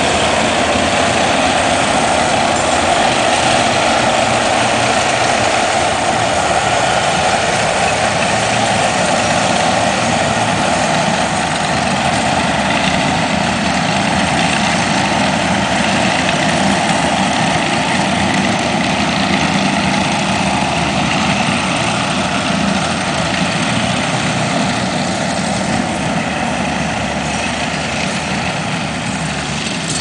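Takeuchi tracked skid steer's diesel engine running steadily as the machine tows a drag across loose dirt, easing slightly quieter over the last several seconds.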